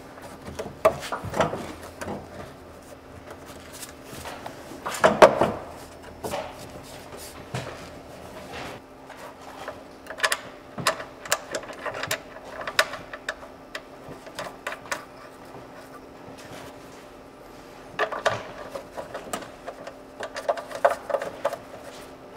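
Clicks, knocks and a few ringing clanks of UTV parts and hand tools being handled and refitted, the loudest clank about five seconds in, over a faint steady hum.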